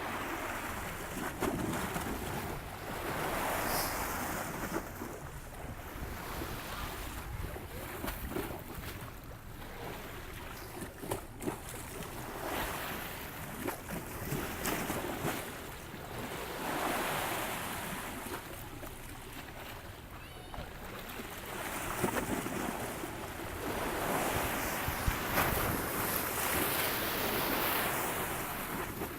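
Wind gusting over the microphone, a rushing noise with a low rumble that swells and eases every few seconds.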